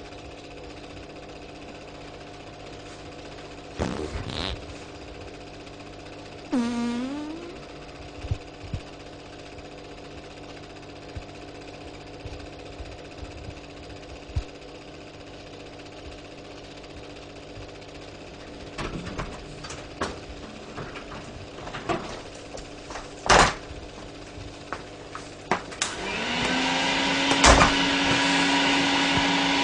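A vacuum cleaner switched on near the end, its motor rising in pitch and settling into a steady drone, with a loud knock soon after. Before it there is only a low hum with scattered knocks and clicks.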